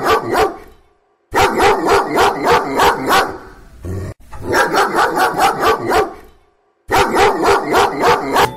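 A dog barking fast, about six barks a second, in runs of about two seconds broken by short silences.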